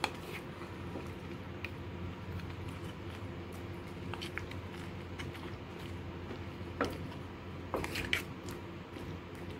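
Wooden spatula stirring chunks of chicken and mushrooms in broth in a clay pot: wet squishing, with a few sharp knocks of the spatula against the pot, the loudest a little before the end. A steady low hum runs underneath.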